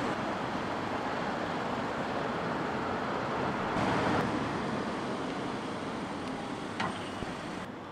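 Street ambience of steady road-traffic noise, swelling briefly about four seconds in, with a small click near the end.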